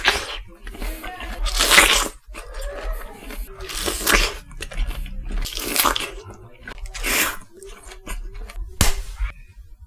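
Crunchy food being bitten and chewed close to the microphone, with about six loud crunches a second or two apart and softer crackling chews between them.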